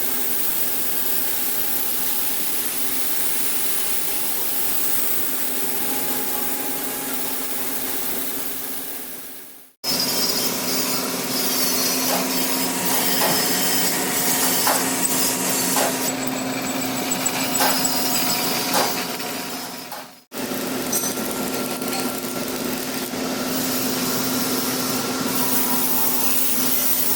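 A workshop machine runs steadily with a constant hum and scraping, metal-working noise. The sound breaks off abruptly twice, about ten and twenty seconds in, and starts again at once.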